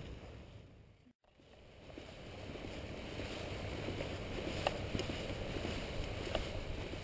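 Wind rumbling on a handheld camera's microphone, with a few faint clicks of handling. The sound drops out briefly about a second in, then the rumble builds back up and stays steady.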